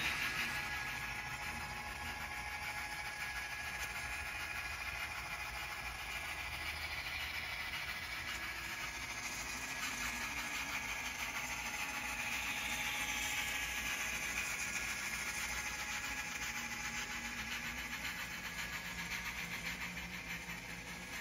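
Model freight train running along the layout's track: a steady rolling rattle of small wheels on rail with a faint motor hum, growing a little louder about halfway through and easing off near the end.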